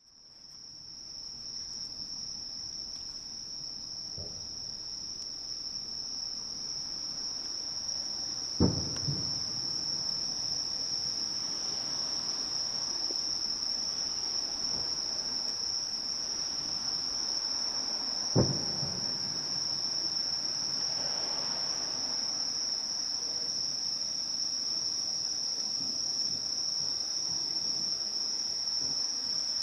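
Night insects trilling steadily on one high pitch. Over them come two dull, distant firework booms with a short echo, the first about eight seconds in and the second about ten seconds later, plus a fainter thump a few seconds in.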